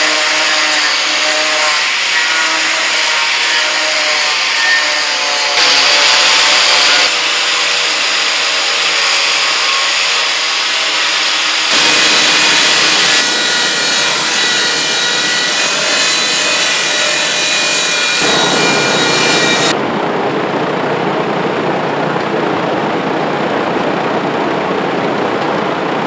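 Angle grinder with an abrasive disc grinding a slope into pine boards, its motor whining steadily under the grit's rasp, then a power drill fitted with a sanding disc smoothing the same wood. The sound changes abruptly several times.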